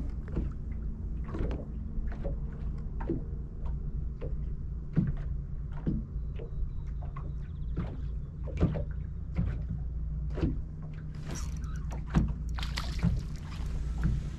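Small waves knocking irregularly against a fishing boat's hull over a steady low electric hum from the bow-mounted trolling motor. Near the end there is a splashy stretch as a hooked crappie is pulled from the water.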